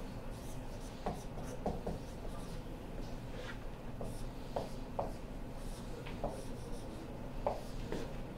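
Dry-erase marker squeaking across a whiteboard in a series of short strokes as words are written, over a steady low hum.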